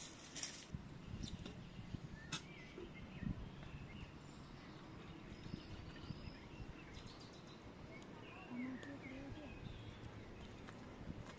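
Faint outdoor background with small birds chirping on and off. A short gritty scrub of a metal pot with soil is heard at the very start.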